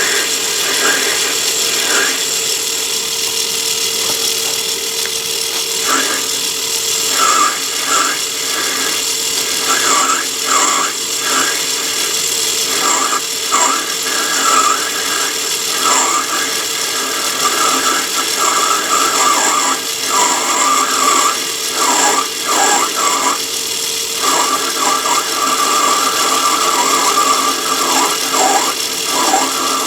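Myford ML7 lathe running while a parting tool in a rear tool post cuts into brass. The cut squeals on and off, with a long squeal near the end.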